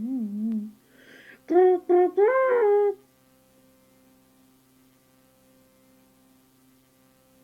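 A cartoon voice bleating like a sheep: a wavering baa trails off, then about a second and a half in come four short bleated syllables in a rising sing-song. After that only a faint steady electrical hum remains.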